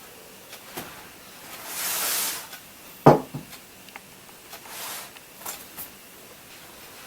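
Household handling sounds: a brief rustle, a single sharp knock about three seconds in, then another short rustle and a few light clicks.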